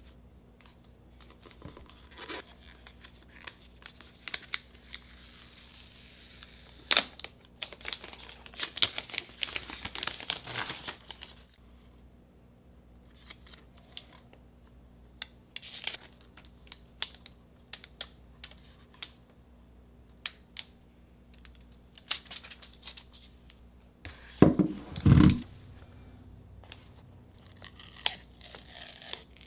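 Clear protective plastic film being peeled off a new Apple TV 4K and its remote, crinkling, with scattered light handling clicks; the densest peeling is about 7 to 11 seconds in. Late on, two dull knocks.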